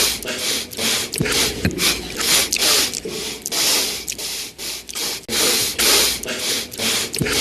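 A rapid string of short, sharp nasal sniffs from one man, about two to three a second, cut back-to-back.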